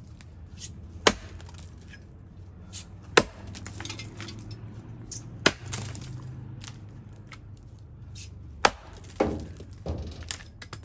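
Axe strikes chopping into the trunk of a standing tree being felled by hand: four loud, sharp chops spaced two to three seconds apart, with a few lighter knocks near the end.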